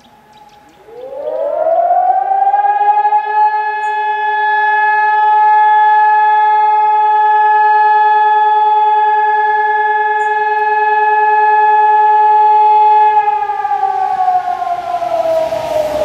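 Outdoor warning siren sounding a fire-brigade alarm. It winds up about a second in, holds one steady tone for about twelve seconds, then slowly winds down with falling pitch. Near the end a car approaches.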